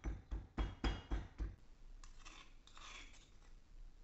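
Stone pestle pounding peeled garlic cloves in a stone mortar, about six blows at roughly four a second. After about a second and a half it gives way to a metal spoon scraping the crushed garlic off the stone.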